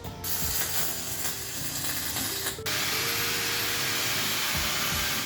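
Arc welding on an aluminium roof rack: a steady hiss and crackle of the arc, which turns smoother and more even about two and a half seconds in. Quiet music plays underneath.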